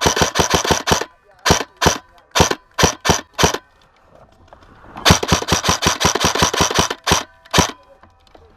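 Airsoft gun firing: a rapid burst that stops about a second in, then six single shots, and after a pause of a second and a half another rapid burst of about two seconds followed by two more single shots.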